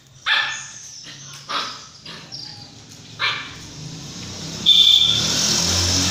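Great Dane puppies barking while they play: three short, sharp yips about a second and a half apart. Near the end a louder steady rushing noise takes over, opening with a brief high tone.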